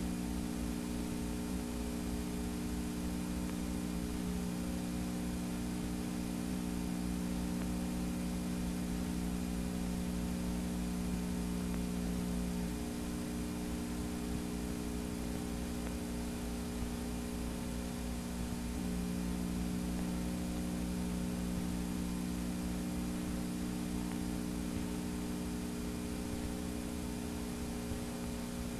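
Steady electrical hum with hiss from the playback of a blank stretch of videotape, with no other sound.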